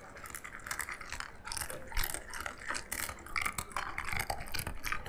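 A pet eating dry kibble, crunching and chewing the hard pellets in a quick, irregular series of crunches.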